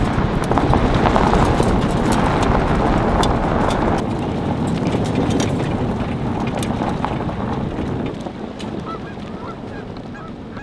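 Tyre and wind noise from an SUV towing a travel trailer along a gravel road, fading slowly. Geese start honking over the last couple of seconds.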